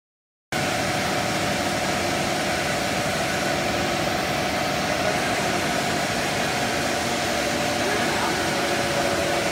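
Cast stretch film extrusion line running: a steady machine hum and whir with a constant mid-pitched tone, starting abruptly about half a second in.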